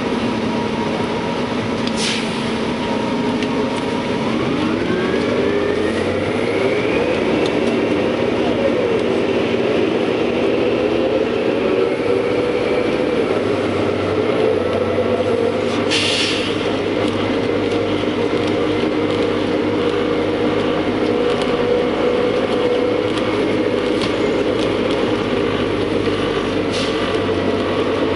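New Flyer C40LF CNG city bus heard from inside the cabin: its Detroit Diesel Series 50G natural-gas engine and Allison B400R automatic transmission pull away, the whine rising for a few seconds about four seconds in, then holding steady as the bus cruises. A few sharp knocks cut in now and then.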